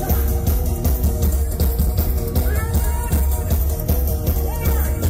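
Live band playing upbeat carnival music: drum kit, heavy bass and guitar over a steady, pulsing beat, with no vocals.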